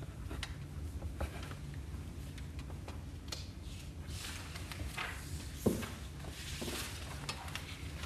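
Quiet room with scattered small clicks and soft rustles of pens and paper as people fill out questionnaires, a sharper knock a little past halfway, over a low steady hum.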